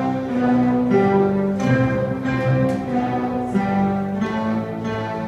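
Several digital pianos and electronic keyboards playing an ensemble piece together: a melody moving over lower held notes.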